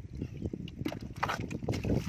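Hands squelching and splashing in wet mud and shallow muddy water, a quick irregular run of wet slaps.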